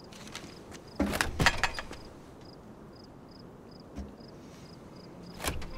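A shut door being tried: a quick cluster of knocks and rattles about a second in, a single knock near four seconds, and another rattle near the end. A faint high chirp repeats about every half second behind it.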